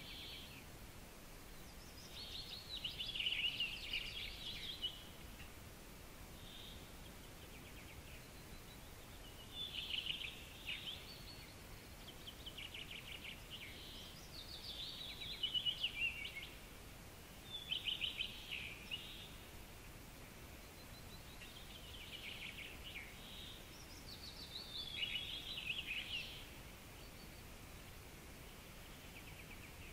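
A songbird singing short phrases of rapid trills and falling notes, repeated every few seconds, over a faint steady hiss.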